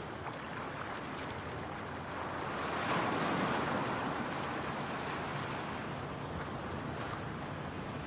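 Steady rushing noise, like surf or wind, that swells for a couple of seconds about three seconds in and then settles back.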